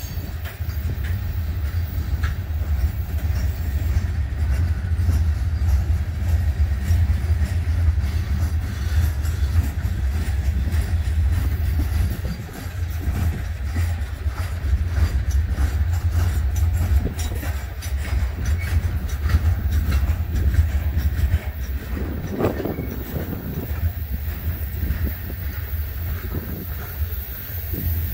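Freight train of open-top coal hopper cars rolling past: a steady heavy rumble of steel wheels on rail, with runs of rapid clicks as the wheels cross rail joints.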